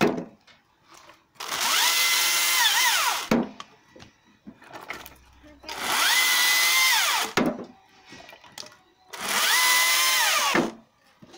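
Husqvarna T536Li XP battery top-handle chainsaw cutting thin branches three times: each time the electric motor winds up to a steady high whine, runs about two seconds through the wood and winds down. Small knocks of wood sound in the short gaps between cuts.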